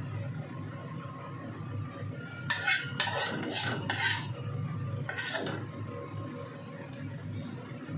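A metal spoon scraping and clinking against a ceramic plate while cooked shrimp are served onto it, in a cluster of strokes about two and a half seconds in and another near the middle.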